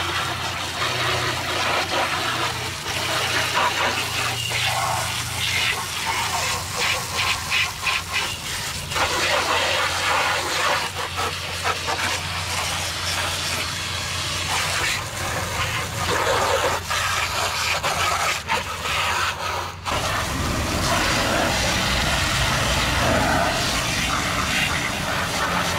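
Garden hose spray wand jetting water onto an ATV, the spray hissing and splashing off the bodywork, racks and tyres as soaked-on cleaner is rinsed off. The sound changes about 20 seconds in as the jet moves to another part of the machine.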